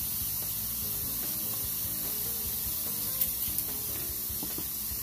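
Thin-sliced marinated bulgogi beef sizzling on a George Foreman electric grill, a steady hiss, with a few light clicks about three seconds in.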